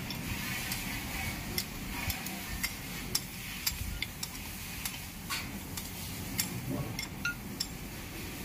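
Spanner and bolts being worked on an engine: irregular sharp metallic clicks and clinks, about one or two a second, over a steady low hum.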